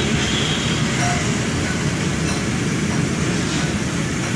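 Steady low rumble of a moving vehicle, heard from on board as it travels along a city street.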